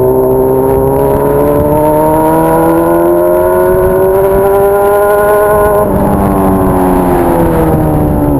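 Honda Hornet inline-four motorcycle engine with a 3-inch aftermarket exhaust, running loud and pulling under acceleration: the note climbs steadily for about six seconds, then drops sharply and falls away.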